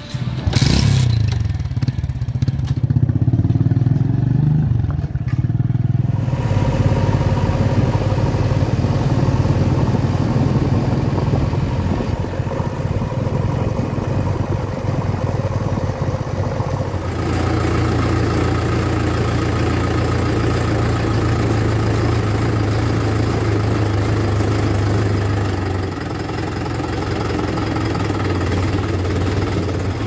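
Engines running: a motorcycle engine starts and revs at the beginning. About halfway through, the sound changes to the steady running of a JCB 3DX backhoe loader's diesel engine.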